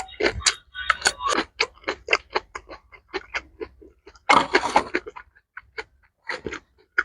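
Close-miked eating sounds: wet chewing and mouth clicks, several a second, while eating mixed rice with kimchi. A longer, louder noisy burst comes a little over four seconds in.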